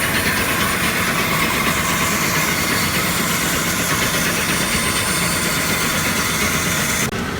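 Water-powered, belt-driven shop machinery runs with a steady low rumble under a loud hiss. The hiss cuts off sharply just before the end.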